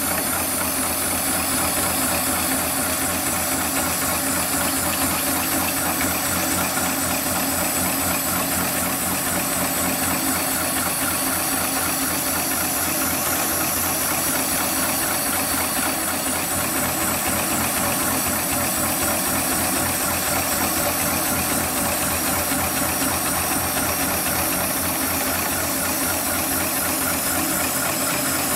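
Hightex heavy-duty computer-controlled pattern tacking machine stitching multi-ply synthetic webbing at a steady, rapid stitch rate, with a constant hiss of cold air from its needle-cooling nozzle.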